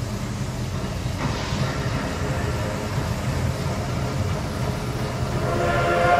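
A steady low rumble, then about five and a half seconds in a steam locomotive whistle begins: a chord of several steady tones that swells louder. It is the departure whistle that opens the turntable show.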